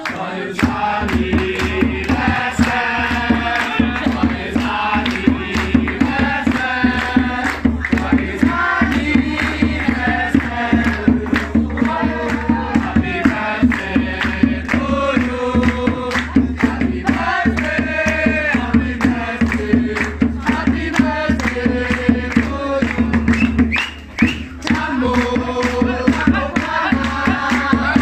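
Music: a song with a sung melody over a steady bass line and an even drum beat.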